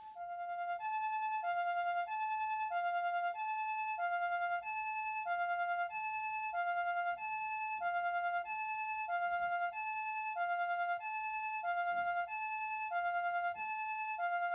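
Osaka Siren MK-10 electronic siren amplifier sounding the Japanese ambulance two-tone "pee-po" siren: a higher and a lower tone alternating evenly, each held just under a second. It swells up over the first second, then holds at a steady level.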